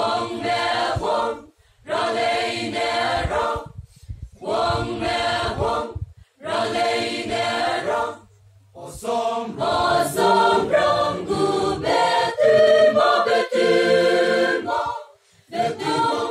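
Mixed choir of men's and women's voices singing unaccompanied, in phrases separated by short pauses.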